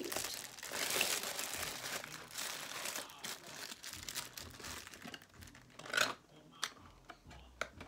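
Clear plastic bag crinkling as a squishy toy is handled inside it. The crinkling is dense and steady for about three seconds, then thins to scattered rustles with a sharper crackle about six seconds in.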